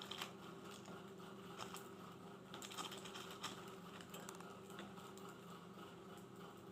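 Budgerigars in a cage: faint, irregular small clicks and taps over a steady low hum.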